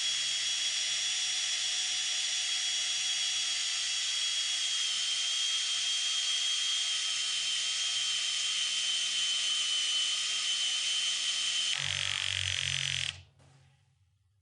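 A drill driving a torsion-spring winder, its motor whining steadily and dropping slightly in pitch as it winds a garage door torsion spring. About twelve seconds in, a low rattling joins the whine as the drill starts to slip under the spring's tension, and the drill stops about a second later.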